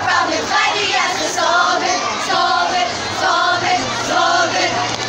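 A group of students singing a jingle together in chorus.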